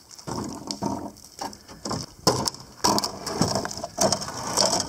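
A rusty metal road-sign post, hauled up by a rope, scraping and knocking against a wooden bridge railing in a series of irregular clunks, the loudest a little past the middle and near the end.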